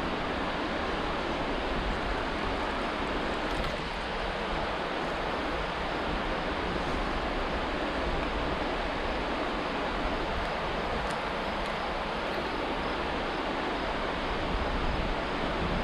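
Steady rushing of flowing river water, with wind rumbling on the microphone.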